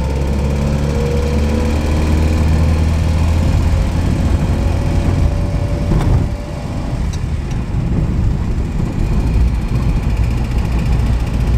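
A car engine running, its pitch creeping slowly upward over the first half, with a single sharp click about halfway through.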